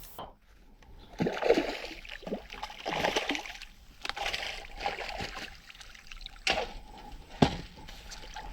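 Water splashing and sloshing in irregular bursts as a hooked carp is landed, with a couple of sharp knocks late on.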